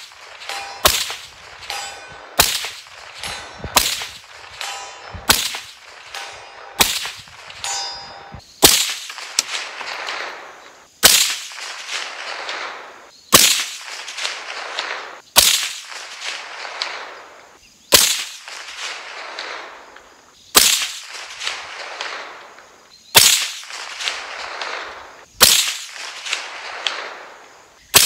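A PSA 7.5-inch AR pistol in .300 Blackout firing about a dozen single shots. For the first eight seconds the shots come about one every second and a half, each with a short metallic ring. After that they slow to about one every two and a half seconds, each sharp report trailing off in a long echo.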